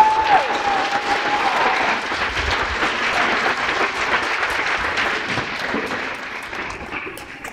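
Audience clapping and cheering, opening with a long high-pitched whoop that trails off after about two seconds. The clapping thins out near the end.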